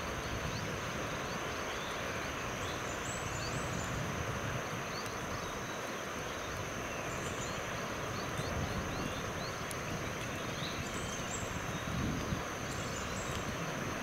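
Forest ambience: a steady hiss under a constant thin, high tone, with scattered faint short chirps.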